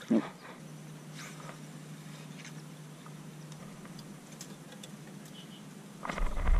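A small bass splashes back into the water as it is released, then it is quiet but for a few faint ticks. About six seconds in, a low rumble sets in.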